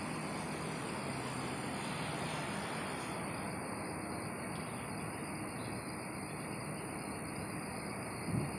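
Steady high-pitched trilling of an insect chorus, crickets or similar, over a low, even background rush; part of the higher trilling drops out about three seconds in.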